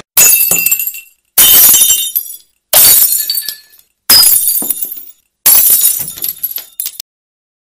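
Glass-shattering sound effect, five sudden crashes of breaking glass about one every second and a half, each dying away with a tinkling tail over about a second.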